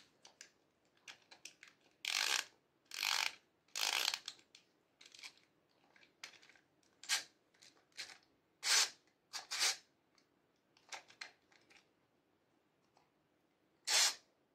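Hard plastic toy parts handled and twisted apart: a run of short, irregular clicks and scrapes, the loudest a few seconds in, around the middle and again near the end.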